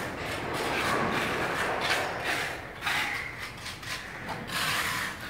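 Irregular scraping and rasping noises that come and go, with short dips about three and four seconds in.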